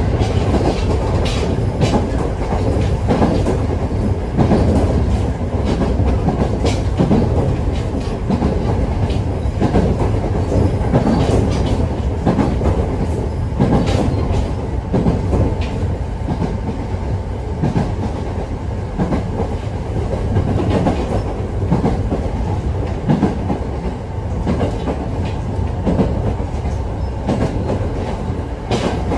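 Commuter train running along the line, heard from inside the passenger car: a steady rumble of wheels on the rails with the clickety-clack of rail joints passing under the car.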